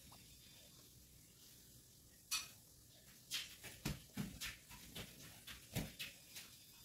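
Fabric rustling and brushing in short bursts as a cloth prayer garment is unfolded and handled by hand. The rustling starts about two seconds in and comes in quick irregular bursts, a few with a soft thud as the cloth drops onto the table.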